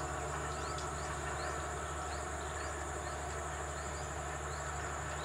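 Steady outdoor background: a constant low hum and a high steady hiss, with short high chirps about twice a second.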